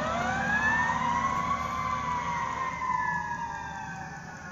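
Federal Q2B mechanical siren on a fire truck winding up to a high wail, then slowly coasting down in pitch and fading.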